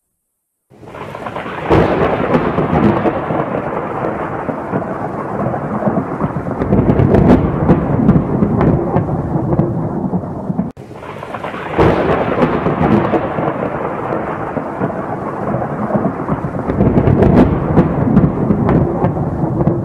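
Thunderstorm sound effect: rolling thunder with a rain-like hiss and scattered crackles, starting about a second in. It cuts off abruptly near the middle and starts over, played twice in a loop.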